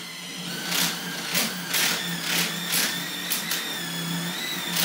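Cordless drill running a quarter-inch masonry bit in drywall, reaming out the hole. The motor whines steadily, with short scraping grinds about twice a second as the bit is worked around the hole.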